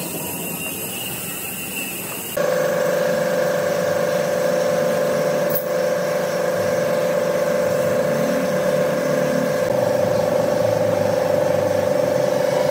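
A woodworking power tool running steadily with a constant hum; a couple of seconds in, the sound jumps abruptly to a louder, steady higher-pitched drone.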